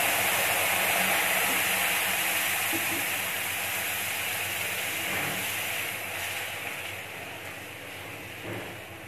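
Water poured into hot oil-fried semolina in a pan, hissing and sizzling with steam. The sizzle is loudest at the start and slowly dies down as the mixture bubbles.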